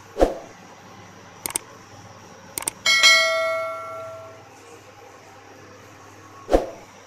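Subscribe-button animation sound effect: a thump as it pops in, two quick double clicks, then a bell ding that rings and fades over about a second and a half, and a second thump near the end. Under it runs a steady low hiss and hum.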